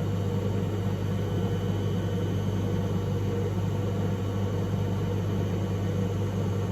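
Washing machine drum spinning steadily at about 600 rpm, a steady low hum and rumble.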